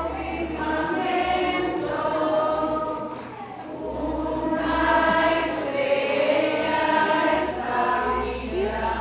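A group of voices singing a slow hymn together, long held notes, with a short break between phrases about three and a half seconds in.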